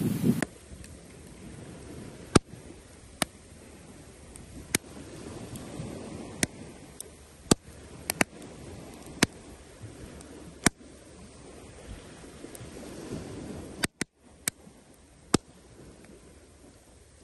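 Wood campfire crackling, with sharp single pops every second or so, unevenly spaced, over a faint steady rush. It opens with a brief burst of wind and surf that cuts off abruptly.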